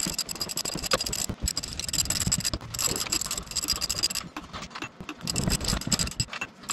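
Socket ratchet clicking rapidly as the steering gearbox mounting bolts are backed out, in runs of fast clicks with a short break about four seconds in as the ratchet moves to the next bolt.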